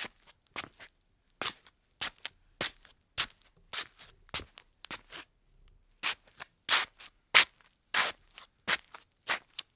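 Slippers shuffling on a tile floor: short scraping scuffs, about two a second, with a brief pause about halfway through and louder scuffs after it.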